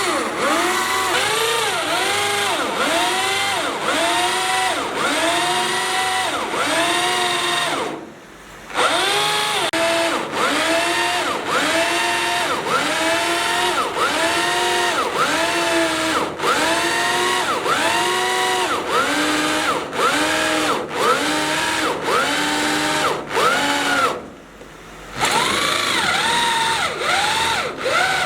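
Electric power drill boring into steel, its pitch rising and falling in a steady cycle about one and a half times a second. It stops briefly twice.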